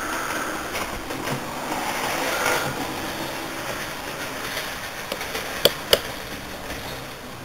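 Model railway running: a steady mechanical rumble, louder in the first half, with two sharp clicks close together about five and a half seconds in.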